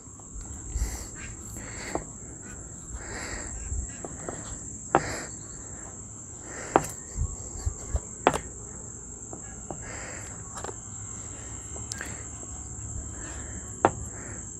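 Steady high-pitched chirring of insects, crickets by the sound of it. Over it come a few sharp taps and soft knocks as hands press pizza dough flat on a wooden cutting board.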